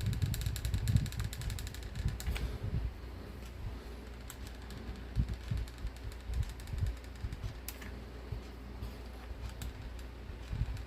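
Handling noise from hands working at a bench: irregular low bumps and knocks, heavier near the start, with a few sharp clicks, over a steady low hum.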